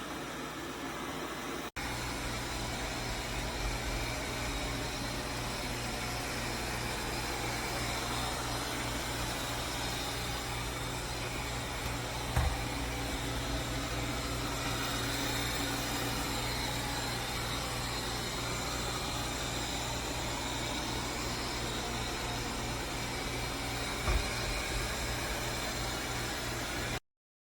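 BPMIO robot vacuum running steadily, a constant whirring hum of its suction motor and brushes, with two light knocks about twelve and twenty-four seconds in. It cuts off abruptly just before the end.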